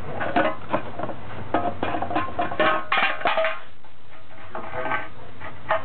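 Empty metal soup can clanking and rattling in a quick, uneven string of knocks with a short tinny ring, as a puppy licks and noses it around. The knocks come thick for the first three seconds or so, then thin out to a couple of single clinks.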